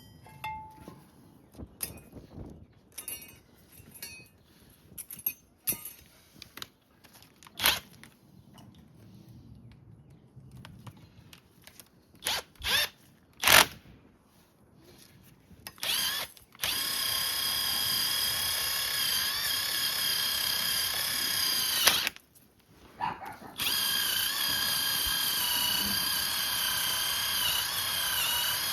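Scattered clicks and knocks of tools and parts being handled. Then a handheld power tool runs with a steady whine for about five seconds, stops briefly, and starts again near the end.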